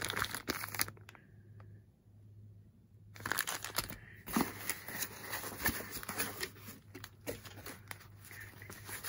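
Packaging being handled by hand: a plastic bag crinkles in the first second, then after a pause tissue paper wrapping rustles and crinkles continuously from about three seconds in as it is pulled out of a cardboard box.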